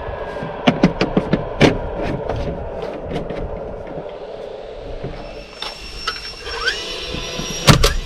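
A few sharp clicks and knocks as a vinyl soffit panel is handled and pushed into place, then one loud shot from a DeWalt roofing nailer near the end as it fastens the soffit. Background music runs underneath.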